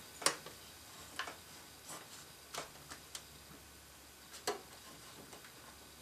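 Scattered small clicks and light rattles of cables and plastic connectors being handled and unplugged inside a PC case, about half a dozen at irregular intervals.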